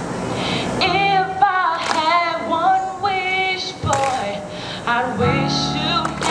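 A woman singing live into a microphone, accompanied on a Korg Triton keyboard; her voice comes in about a second in and carries on with held, wavering notes.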